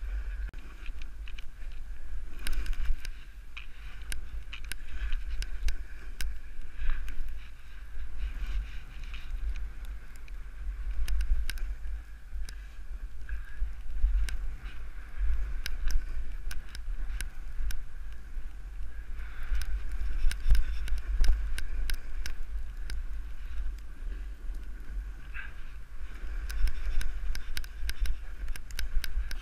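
Wind rumbling on the camera's microphone while riding downhill through powder snow, with the hiss and scrape of sliding on snow and scattered clicks and knocks.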